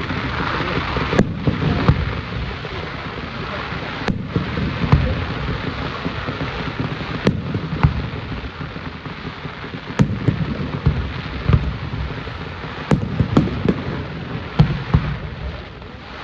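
Fireworks display: more than a dozen sharp bangs at irregular intervals, some in quick clusters, over steady background noise.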